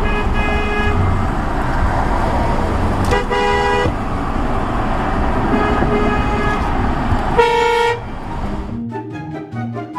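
Car horns honking about four times, some short and some held for most of a second, over a steady rush of traffic and engine noise. The loudest honk comes near the end. The drivers are honking at a car sitting still after traffic ahead has moved on. Background music comes in just before the end.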